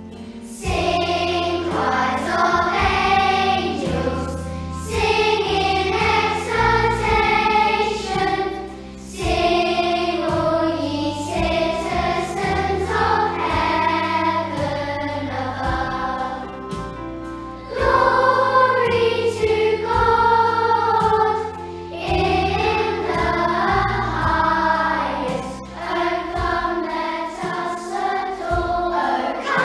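Children's choir singing a song together, with instrumental accompaniment underneath.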